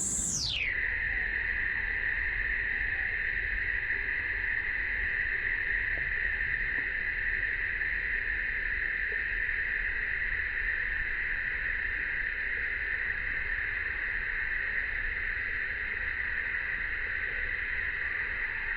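Summer cicada chorus: a steady, unbroken buzzing hiss, with a faint low rumble beneath.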